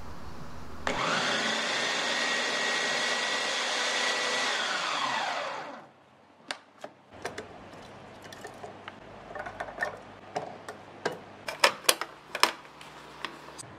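Small electric food chopper's motor starting about a second in, running steadily with a whine while chopping oncom, then winding down to a stop. After it, a series of sharp plastic clicks and knocks as the chopper bowl and lid are handled, loudest near the end.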